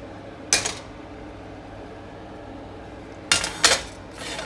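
Kitchen utensils clattering against a pan and dishes: one clank about half a second in, then three quick clanks near the end.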